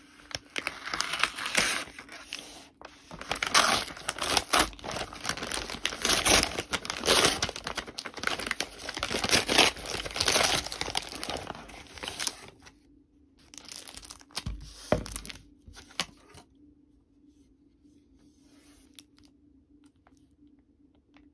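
Parcel packaging being torn open and crinkled by hand for about twelve seconds, then a few scattered clicks and rustles.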